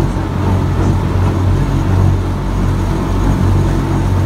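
WWII DUKW amphibious duck boat engine running steadily under way on the river, a low drone over the rush of water and wake.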